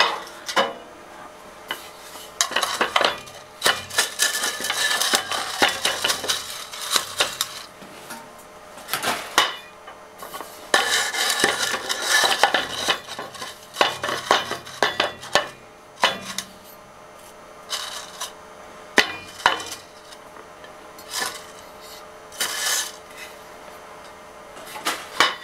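Twist drill in a BF45 milling machine cutting through metal plate: metal chips clinking and clattering in irregular bursts over a faint steady spindle hum.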